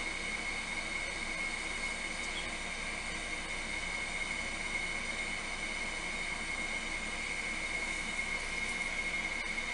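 Steady whirring of an electric fan motor, with a constant high-pitched whine over an even rushing hiss.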